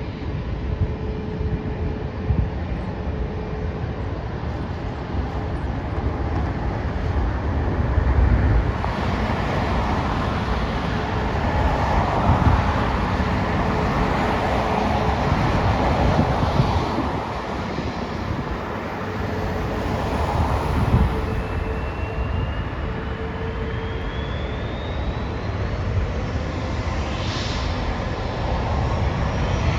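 Jet airliner engine noise: a steady rumble, with a rising whine in the last few seconds as the sound grows louder, like a jet drawing closer.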